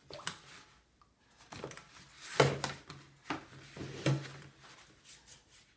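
A long sheet of watercolour paper being lifted and shifted across a table: soft rustling with several short knocks and bumps, the loudest about two and a half seconds in.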